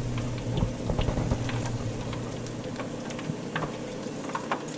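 Hot cooking oil in an electric deep fryer bubbling and crackling, with scattered light ticks over a steady low hum.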